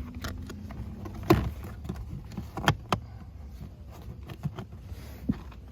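Scattered clicks and knocks of plastic car interior trim and clips being worked and pushed into place, the loudest about a second in.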